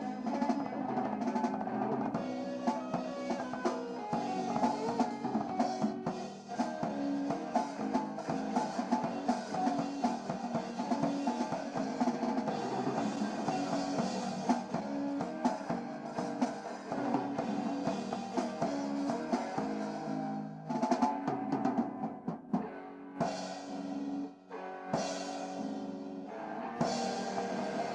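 Rock band playing: drum kit with electric guitar and bass. About twenty seconds in, the band breaks into short stops punctuated by drum hits, then plays on to the end.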